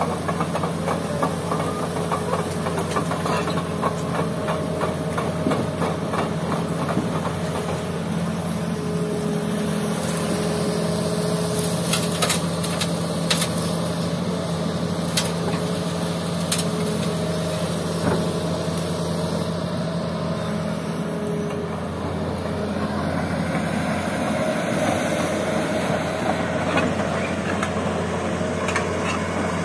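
Diesel engine of a Hitachi hydraulic excavator running steadily as it works. Between about twelve and seventeen seconds in, a few sharp knocks come as the bucket unloads sand and gravel into a dump truck's steel bed.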